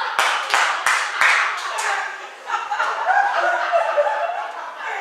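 Hand clapping close to the microphone, about six uneven claps in the first two seconds, over spectators' chatter that carries on afterwards.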